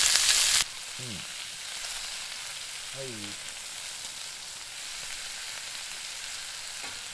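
Thin slices of raw meat sizzling on a hot round griddle over a wood fire, a steady frying hiss. It is loud at first and drops suddenly to a softer level about half a second in.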